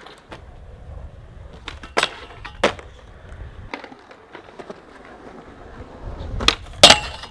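Skateboard wheels rolling on concrete, with sharp clacks of the board's tail popping and the board landing: a pair about two seconds in and more, louder ones near the end.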